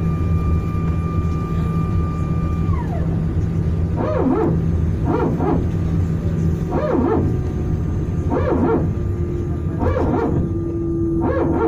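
Airbus A319 hydraulic power transfer unit (PTU) barking: six short, growling barks about every second and a half, over the steady rumble of the engines in the cabin. A high whine drops away about three seconds in. The PTU is typical of the A320 family during single-engine taxi and second-engine start.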